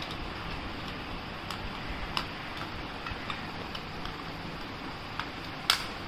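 Yellow-collared macaw's beak clicking and tapping on a plastic computer mouse as she bites at it: scattered, uneven clicks, with the loudest one near the end.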